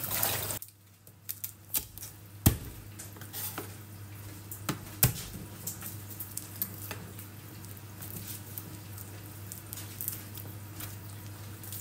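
Chef's knife on a plastic cutting board as garlic cloves are crushed and peeled: two sharp knocks of the blade about two and a half seconds apart, with lighter taps and scrapes between. A faint steady sizzle of chicken frying runs underneath.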